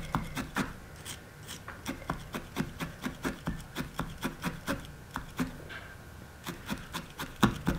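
Multi-needle felting tool stabbing repeatedly into wool, a steady run of short pokes at about four a second.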